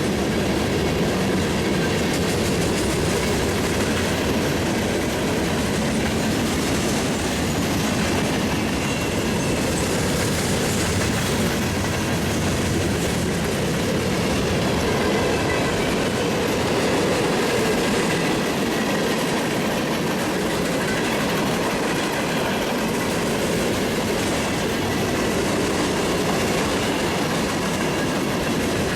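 Freight train cars rolling past, a steady rumble and clatter of steel wheels on the rails, with a faint high squeal from the wheels.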